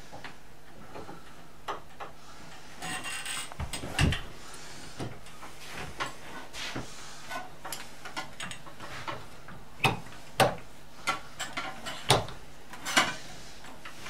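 Scattered clicks and knocks of a metal letterbox tool and its flexible drive shaft being manoeuvred against a door's lever handle, with a louder knock about four seconds in and a run of sharp clicks near the end.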